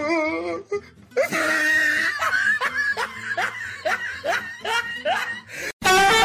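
A person laughing in a regular run of short 'ha' bursts, each falling in pitch, about three a second. A break and a different loud sound cut it off near the end.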